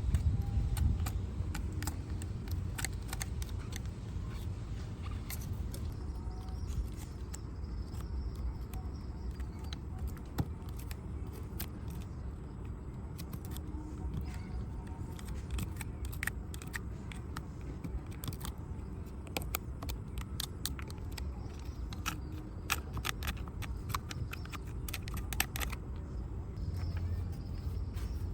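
Scattered small clicks and taps of hands and tools working on a die-cast metal model motorcycle, over a steady low rumble.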